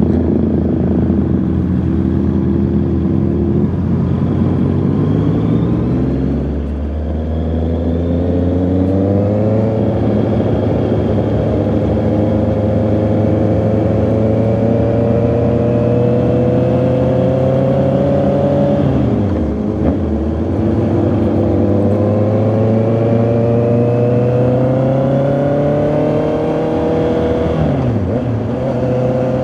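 Honda CB650R inline-four engine under way, its note climbing steadily as the bike accelerates, then dropping sharply at each upshift, three times.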